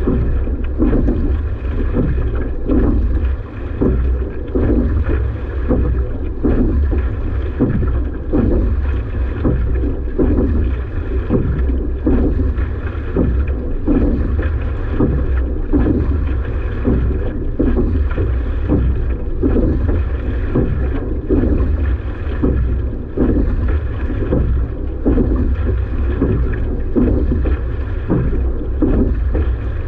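Rowing boat under way during a hard 500 m piece. Heavy wind noise on the microphone sits under a repeating rhythm of the strokes, about one every second and a half.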